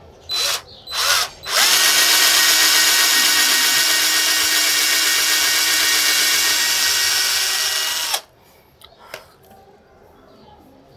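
Electric drill boring a hole into a wooden strip: two short trigger bursts, then one steady run of about six and a half seconds that stops suddenly. A couple of light clicks follow.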